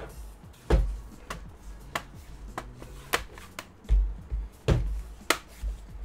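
Plastic bottom cover of an HP Omen 15 gaming laptop being pressed and handled, giving a string of sharp clicks and a few dull knocks, roughly one every half second, as the cover grips back onto the chassis.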